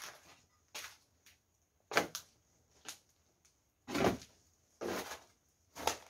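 Slow footsteps on a gritty, debris-strewn floor, about one step a second, each a short scuff.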